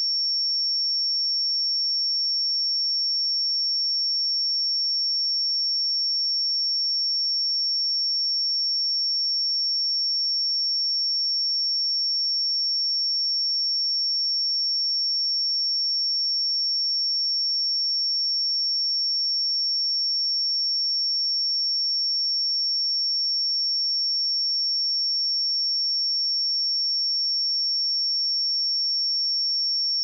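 Steady pure sine-wave test tone at 5477 Hz, a single high-pitched note held at constant level.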